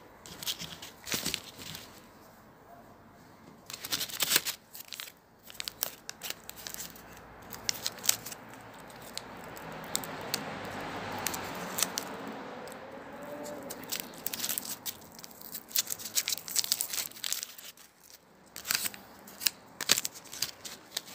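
Packaging of a self rapid test kit being opened by hand: paper and plastic wrappers crinkling and tearing, with many short crackles and clicks and a longer stretch of rustling about halfway through.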